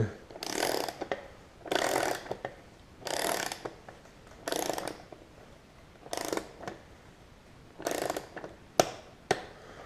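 Ratchet wrench being worked in short strokes, about six bursts of ratcheting clicks roughly a second and a half apart, tightening the crank arm's tightening ring onto the spindle. Near the end come a couple of single sharp clicks.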